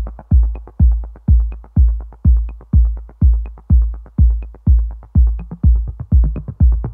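Electronic dance background music: a deep kick drum beating steadily about twice a second, with light ticking percussion over it.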